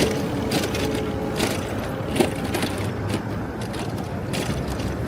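City road traffic heard while riding through it: a steady low rumble of vehicles with a few brief clicks and rattles.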